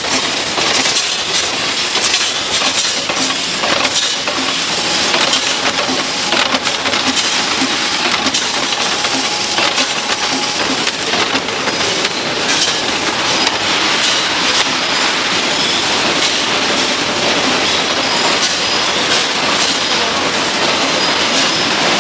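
Automated food-factory processing machinery running steadily, with continuous clattering and rattling.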